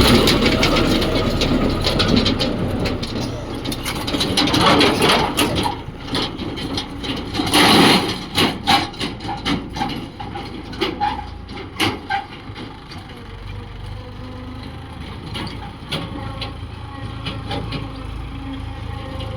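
Heavy diesel machinery engine running, loud at first, with a short burst of noise about eight seconds in followed by a run of knocks, then settling into a steadier, quieter hum.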